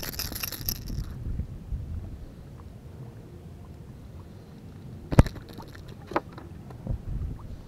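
Fishing rod and reel handled during a lure cast and retrieve: a brief hiss in the first second, a low rumble of handling and wind, then one sharp click about five seconds in and two softer clicks after it.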